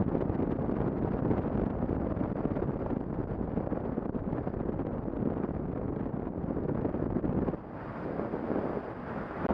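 Wind rushing over the microphone with motorcycle engine and tyre noise, riding along a dirt road; the noise dips for a moment near the end.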